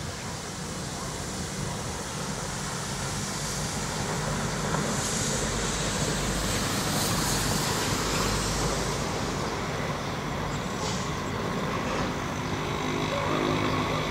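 Diesel locomotive engine running as the train approaches at low speed, a steady low drone that grows louder over the first few seconds. A stretch of high hiss comes in about five seconds in and fades by about nine seconds.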